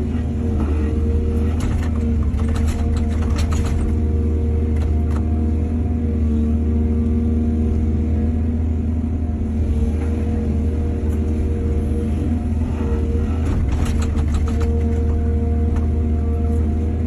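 Heavy diesel engine of an excavator running steadily under load, with two spells of clattering knocks, a couple of seconds in and again about 13 seconds in.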